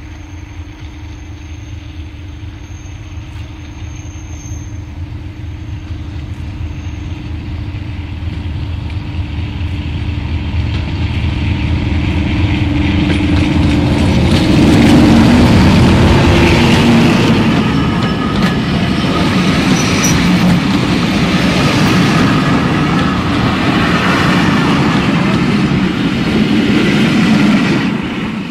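British Rail Class 37 diesel locomotive 37264, its English Electric V12 engine running with a steady note as it approaches, growing louder until it passes about halfway through. The coaches then roll by with repeated wheel clicks over the rail joints, and the sound falls away just before the end as the train clears.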